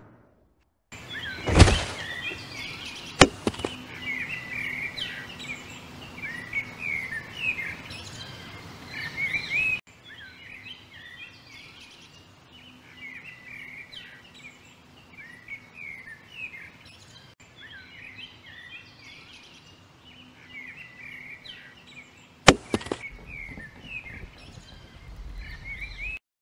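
Small birds chirping over a faint outdoor ambience, the chirping softer after about ten seconds. Sharp cracks cut through it about a second and a half in, again at about three seconds, and once more near the end.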